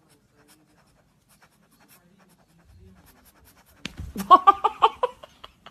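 Near silence at first, then about four seconds in a quick run of short, pitched vocal sounds lasting about a second and a half.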